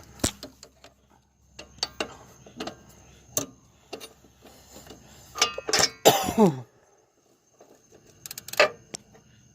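Scattered metallic clicks and knocks of hand tools and suspension parts being handled, in irregular bunches. About six seconds in comes a short throat-clearing sound that falls in pitch.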